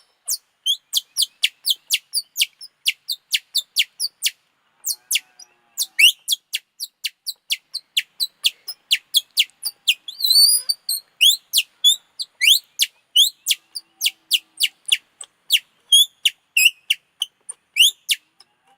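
A bird call imitated by blowing on a torn, stretched strip of plastic: a long series of quick, high, falling chirps, about three a second, broken by a couple of warbling trills.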